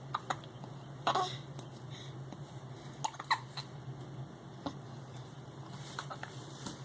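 A boy hiccuping repeatedly: short, sudden hiccups a second or two apart, the loudest about a second in and just after three seconds in.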